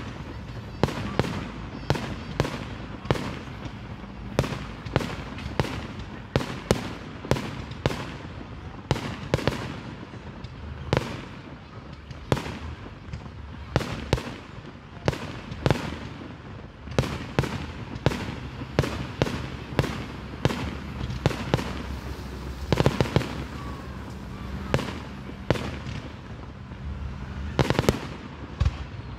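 Aerial fireworks shells bursting, an irregular run of sharp bangs about one or two a second with short lulls, echoing through the city.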